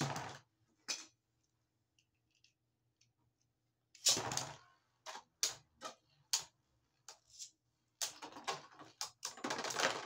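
Beyblade Burst tops in a plastic stadium: a ripcord launch rips at the start, then sharp clacks as the spinning tops hit each other and the stadium walls. Near the end the clacks come fast and dense as one top bursts apart, its parts clattering across the stadium.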